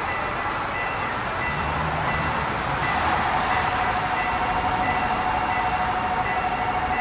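Automatic level-crossing warning alarm ringing, its electronic tones repeating on and off, as a train approaches the crossing. About three seconds in, a steadier lower tone with a fast pulse joins and the sound grows a little louder.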